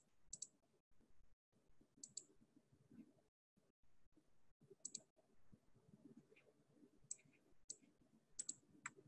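Near silence broken by faint, irregular clicks, about ten in all, coming more often towards the end, over a low room murmur.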